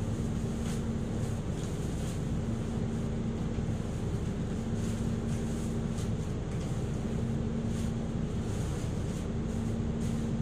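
Isuzu Erga Hybrid city bus heard from inside its cabin while under way: a steady low drone with one even hum held throughout, and faint light ticks and rattles here and there.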